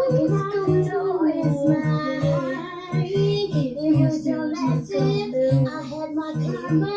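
Music: a song with a high singing voice carrying a melody that slides up and down, over a steady pulsing low beat.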